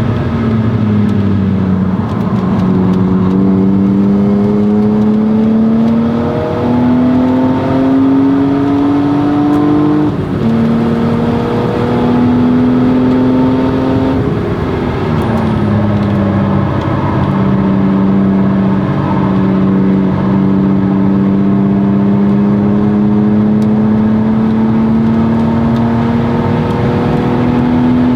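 1997 BMW E36 M3's 3.2-litre straight-six under hard acceleration through a Stromung cat-back exhaust. Its pitch climbs with a shift about ten seconds in, falls off for a few seconds past the midpoint as the car slows, then climbs slowly and steadily again.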